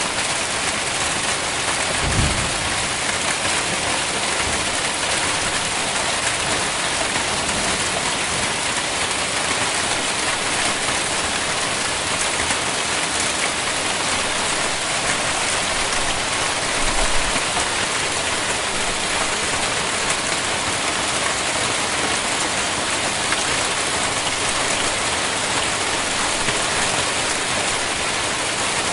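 Hail storm: a dense, steady clatter of hailstones falling and striking surfaces, with two brief low thuds, one about two seconds in and another about seventeen seconds in.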